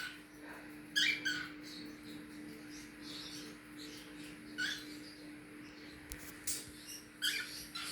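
Young cockatiels giving a few short, high chirps spaced a second or more apart, over a faint steady low hum.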